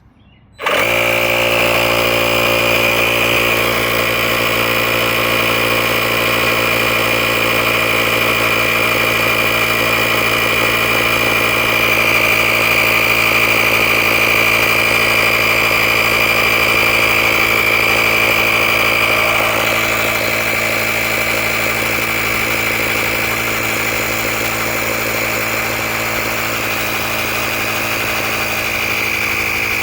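Handheld cordless tire-inflator air compressor switching on under a second in and running steadily with a high whine, pumping up a tire toward its preset 35 PSI. It gets a little quieter about twenty seconds in.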